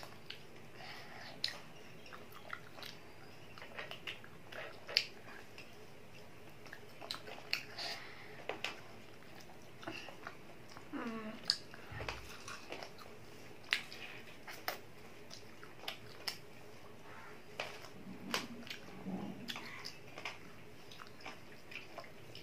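A child chewing and biting fried chicken, with many short, sharp mouth clicks at irregular intervals.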